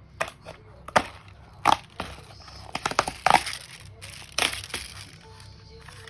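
Paperboard ice cream box being torn open by hand: a string of sharp rips and cracks as the glued lid flap pulls away. The loudest come about a second and a half in and around three seconds, with a last pair just past four seconds.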